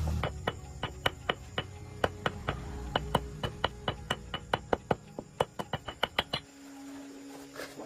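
A quick run of sharp metallic clicks or taps, about four to five a second in loose groups, from hand-tool work on metal. It stops about six and a half seconds in.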